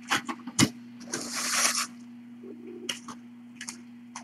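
Kittens scuffling about on a carpeted cat tree: a few light knocks and scrapes, with a short burst of rustling noise about a second in, over a steady low hum.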